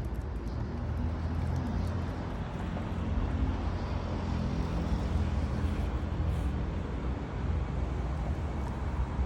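Steady low rumble of a vehicle engine running, with a noisy hiss over it and a few faint small clicks.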